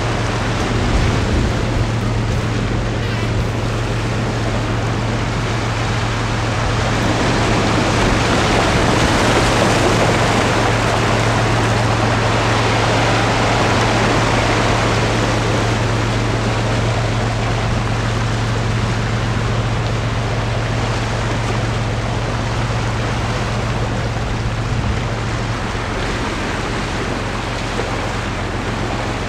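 Sea waves washing over a rocky shore with wind buffeting the microphone, a steady rushing that swells for several seconds through the middle.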